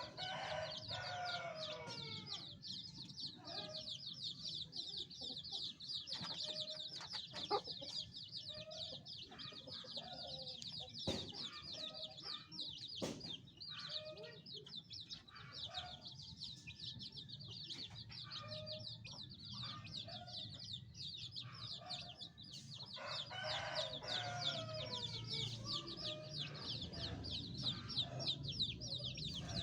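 Many domestic chicks peeping continuously in rapid, high, falling chirps. Adult chicken clucks come in at intervals and are loudest a little past two-thirds of the way through.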